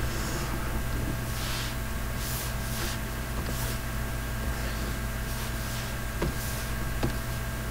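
Room tone of the recording: a steady low electrical hum with faint hiss, a few soft brushing sounds in the first half and two light clicks near the end.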